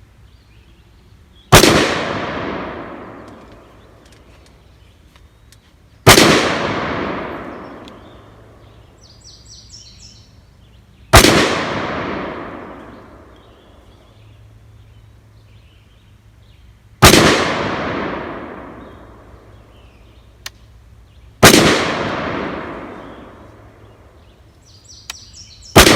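Single gunshots from a 5.56 AR pistol with an 8.5-inch barrel, fired one at a time about four to six seconds apart: five shots, and a sixth right at the end. Each is a sharp crack followed by a long echo dying away over two or three seconds.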